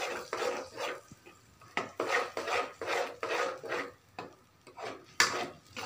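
Metal spatula scraping and stirring thick tomato curry masala in a steel kadai: a string of short, irregular rasping strokes, with a brief lull a little after the middle.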